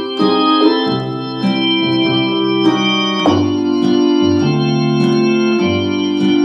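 Roland FR-4X digital accordion playing an organ voice: sustained chords over left-hand bass notes, with a chord change about three seconds in.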